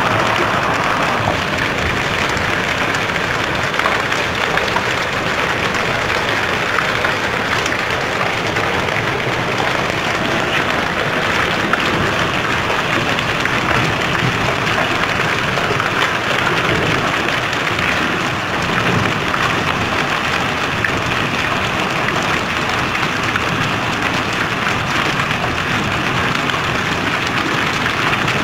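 Hailstones and heavy rain falling on concrete and hard surfaces: a steady, dense patter of countless small impacts.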